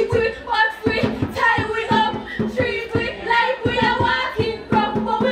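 A woman's amplified singing voice over a backing track with a steady beat, played through a loudspeaker.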